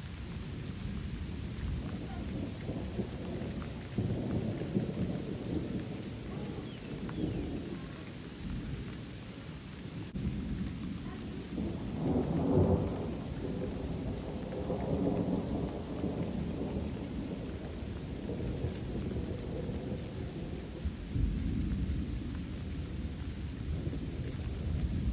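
Low rumbling noise that swells and eases, with a short high chirp repeating about every second and a half, clearest in the second half.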